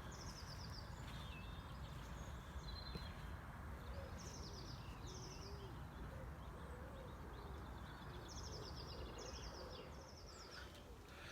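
Small birds singing in repeated short, rapid, downward-sliding phrases, faint, over a steady low background rumble.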